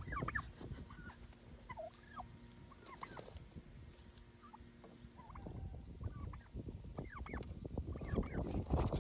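Turkeys and other poultry giving short, scattered calls. Wind buffets the microphone underneath as a low rumble that grows strongest over the last few seconds.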